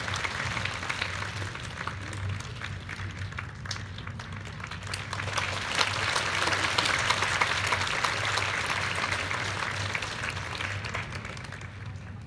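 Theatre audience applauding, many hands clapping at once. The applause swells about halfway through and dies down near the end.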